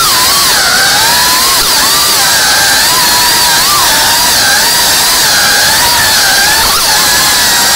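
FPV quadcopter's brushless motors and propellers whining, the pitch rising and dipping every second or so as the throttle changes.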